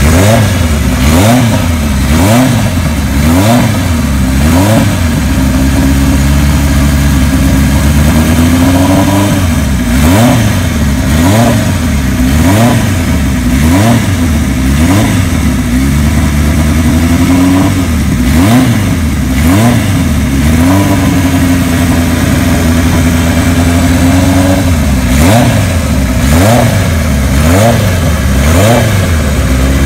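Kawasaki Z1 900's air-cooled inline four-cylinder engine running while the throttle is blipped over and over, the revs rising and falling about once a second. There are a few longer held revs, the longest for about three seconds past the middle, as the engine warms up after a cold start.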